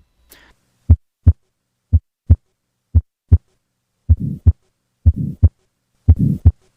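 Heart sounds through a stethoscope: paired lub-dub beats about once a second, clean at first. From about four seconds in, a harsh murmur fills the gap between the first and second sound of each beat: a systolic ejection murmur of the kind heard in tetralogy of Fallot.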